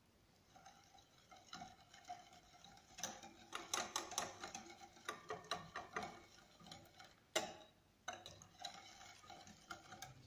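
Wire balloon whisk stirring flour into cake batter in a glass bowl, its wires clicking and tapping against the glass in quick, irregular strokes, with one louder clack near the middle.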